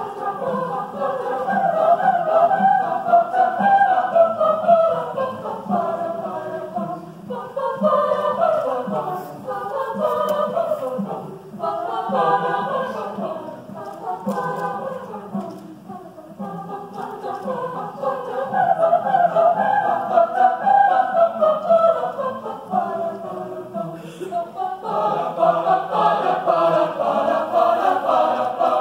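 A choir singing in phrases of several seconds, with a few short breaks between them.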